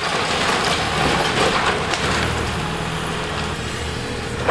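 Building demolition: a burst of crunching, clattering debris noise over the first two seconds, over the steady running of a heavy machine's diesel engine.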